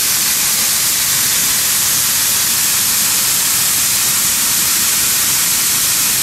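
Soybeans pouring from the auger into a metal grain bin and piling up: a loud, steady hiss.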